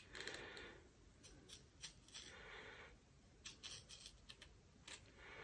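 Faint cutting and scraping at the waterproof glue on a metal detector's coil-cable joint: a few short scratchy strokes and small clicks, with quiet gaps between.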